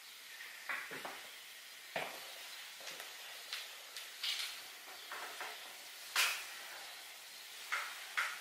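Steady background hiss, broken by about nine short, soft noises at irregular intervals; the loudest comes about six seconds in.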